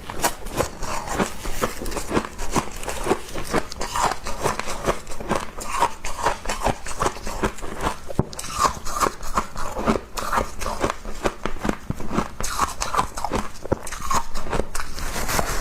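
A person chewing a mouthful of frost: a continuous run of crisp, rapid crunches.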